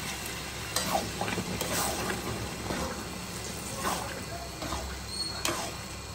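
Spatula stirring potatoes and dried peas through a thick masala in an aluminium kadai, with irregular scrapes and knocks against the pan about once a second over a steady low hiss.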